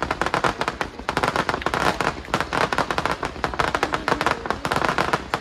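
Aerial fireworks display: shells bursting overhead in a dense, continuous run of sharp crackling pops, many a second.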